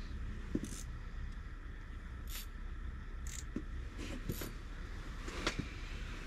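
A steady low rumble with soft rustles and clicks scattered through it, as a person shifts about in a nylon sleeping bag.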